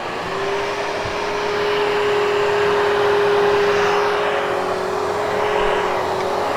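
Hoover HushTone vacuum cleaner running loud and close, its motor coming up to speed over the first couple of seconds and then holding a steady rush of airflow with one steady whine.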